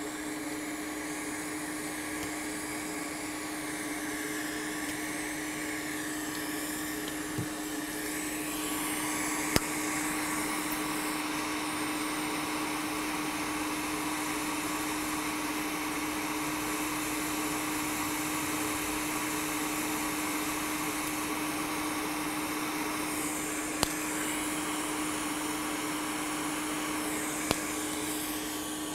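Hot air rework station blowing steadily while components are desoldered from a laptop motherboard: a constant rush of air over a steady fan hum, growing a little louder about eight seconds in. A few sharp small clicks sound over it.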